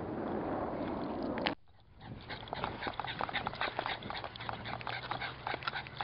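A steady rushing noise that cuts off abruptly about a second and a half in, then a small dog running close by on grass, with a quick, irregular patter of short clicks and breathing sounds.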